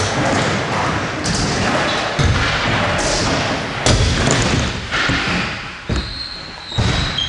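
Stunt scooter wheels rolling on a concrete skatepark floor, with several thuds and clatters as the scooter lands and the rider falls with it.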